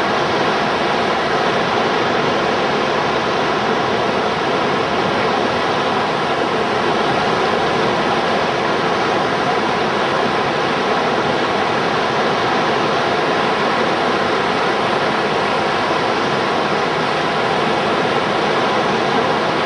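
Steady, loud rush of river whitewater pouring through a standing wave in the rapids.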